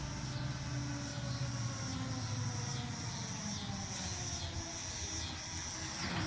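Federal Signal 2001 outdoor warning siren winding down, its faint tones sliding slowly lower, over a steady low rumble and a high insect buzz that repeats about once a second.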